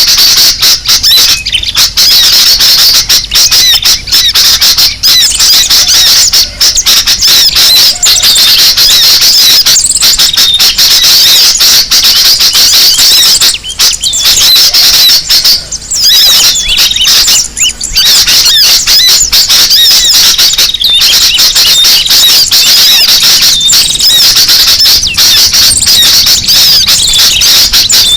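A noisy, dense chorus of sooty-headed bulbuls (kutilang) and other small songbirds, many overlapping chirps and quick whistled calls without a break, a lure recording for attracting birds.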